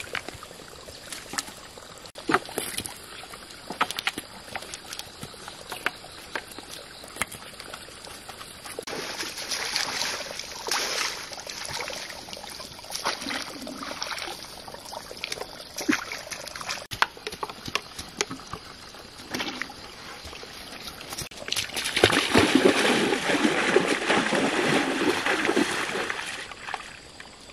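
Light clicks and rustles of a hand net and twigs being handled, then water splashing and running off as the net is swished and rinsed in a shallow stream. Near the end, steady loud splashing of feet wading through the stream.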